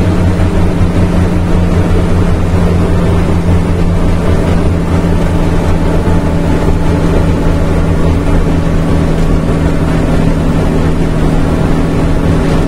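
Scania Vabis truck's turbocharged six-cylinder diesel pulling steadily under a heavy load up a grade in a reduced gear, heard from inside the cab, with the turbo's hiss over the engine drone.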